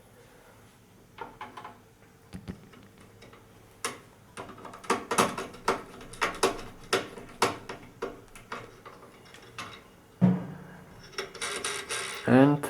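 An irregular series of sharp clicks and knocks, some with a short ring after them, thickest in the second half.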